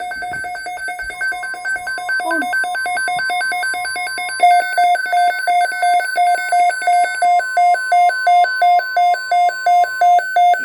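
Weather alert radio's alarm sounding for a severe thunderstorm watch: a loud electronic beeping that pulses regularly and steps up in loudness about four seconds in, to about three beeps a second. A faint steady tone near 1 kHz runs under it, fitting the broadcast's 1050 Hz weather alert tone.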